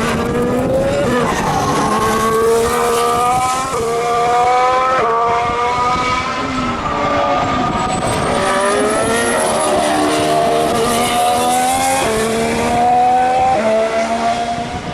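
2014 Formula One cars' 1.6-litre turbocharged V6 hybrid engines at speed, the pitch climbing and then dropping sharply at each upshift, several times over. A faint high whine rises and falls about halfway through.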